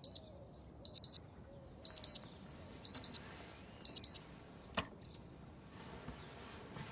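Digital alarm clock beeping: five quick double beeps at one high pitch, one pair a second, then a single click.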